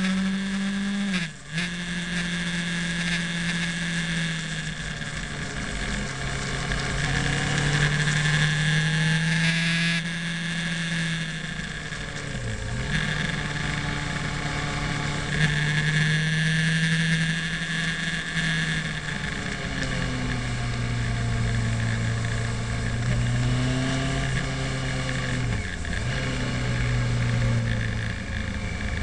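Motorcycle engine running steadily at road speed, with wind rushing over the microphone. The engine note steps between two pitches and dips sharply three times, about a second in, near the middle and near the end, as the rider shifts gear or rolls off the throttle through the bends.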